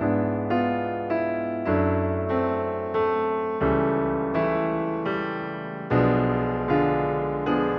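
Background music: a gentle piano piece, notes struck at an even, unhurried pace, each dying away.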